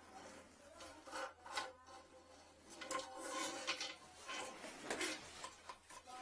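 Steel drain wire with a hooked tip rubbing and scraping against the porcelain toilet trap in irregular strokes as it is worked and drawn up, fishing for a toothbrush lodged in the trap.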